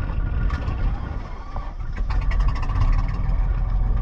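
A small boat's engine running steadily with a low rumble.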